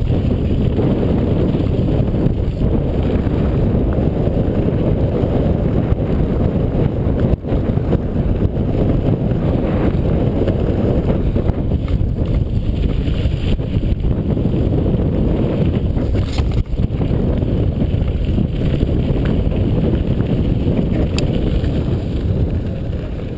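Wind rushing over the microphone of a handlebar-mounted camera on a mountain bike riding fast down a dirt and gravel track, with tyre and frame rumble and a couple of brief knocks. The rush dies down near the end as the bike slows.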